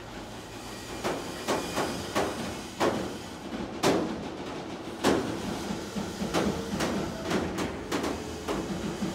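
Freight train of hooded freight wagons rolling slowly past, with a steady low rumble and irregular sharp clacks of the wheels over the rails.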